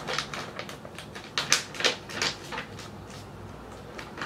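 A sheet of paper, a printed order receipt, being folded and handled: a run of short, irregular rustles and crinkles over the first two and a half seconds, the loudest about one and a half seconds in, then quieter.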